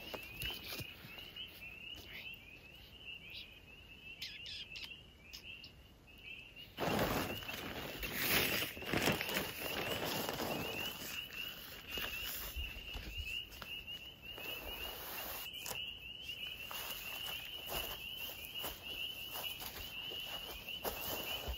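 Chorus of spring peepers: many short, high, rising peeps overlapping without a break. A rustling noise starts about seven seconds in, and it is loudest for the next few seconds.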